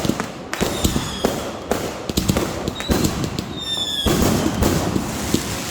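Consumer fireworks going off in rapid succession: a dense run of bangs and crackling, with a few short whistles, most falling in pitch, cutting through it.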